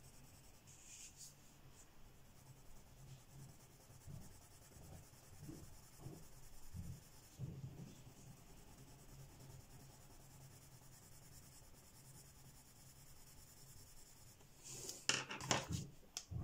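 Derwent Lightfast coloured pencil shading back and forth on paper, a faint scratchy rubbing. Near the end comes a short burst of louder clicks and knocks as the pencils are handled.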